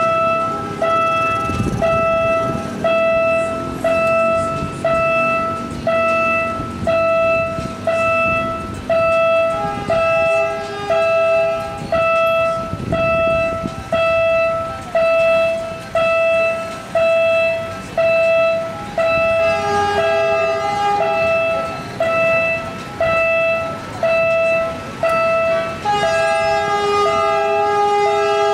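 Railway level-crossing warning alarm beeping about once a second with one steady pitch. A horn sounds briefly twice, then is held over the last couple of seconds.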